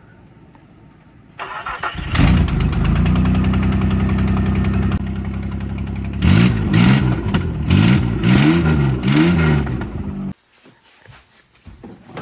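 An old truck's engine, on jumper cables, cranked by the starter and catching about two seconds in, then running steadily before being revved in several quick blips. The sound cuts off suddenly near the end.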